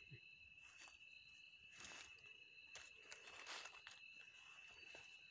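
Faint forest ambience: a steady high insect trill, with several short rustles of dry leaves and feathers as a dead junglefowl is handled on the leaf litter, mostly in the second half.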